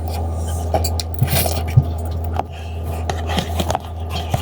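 Scattered light clicks, knocks and scrapes of eating, as of utensils against a dish, over a steady low hum.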